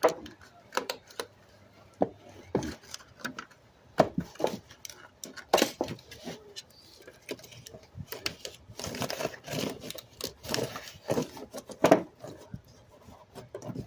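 Metal foil tape and the sheet-metal register vent being handled and taped: irregular crinkling, rustling and light metallic clicks and taps, busiest about two-thirds of the way through.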